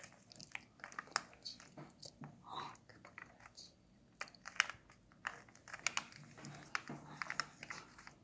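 A sheet of origami paper being folded and pinched into shape by hand: irregular crinkling with sharp paper crackles and clicks, several a second.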